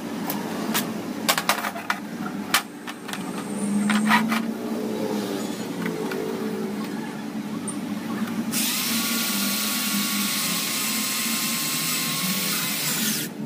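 Handheld electric drill running steadily for about five seconds as it bores through a fibre roofing sheet, then stopping suddenly. Before it, a few sharp knocks and clicks.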